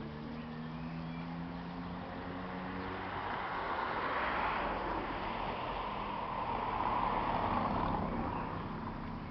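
Passing road traffic: a low engine hum at first, then vehicle noise that swells about four seconds in and again around seven seconds in before fading.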